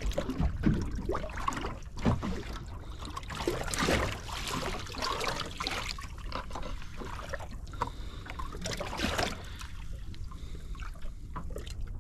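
Small waves lapping and splashing against the hull of a small fishing boat drifting at sea, in uneven surges.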